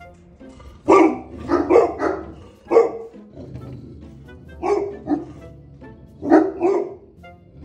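Landseer Newfoundland dog barking loudly at a squirrel outside the window, about nine barks in quick clusters of two or three with short pauses between.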